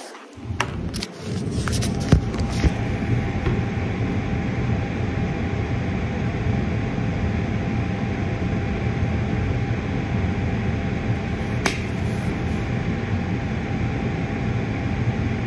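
A steady mechanical hum with a faint whine in it, starting after a few clicks and knocks in the first two seconds. One more click comes about two-thirds of the way through.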